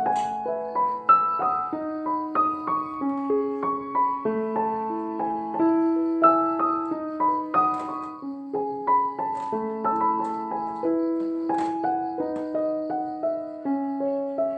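Background music: a gentle piano melody with notes changing about every half second, with a few faint sharp clicks.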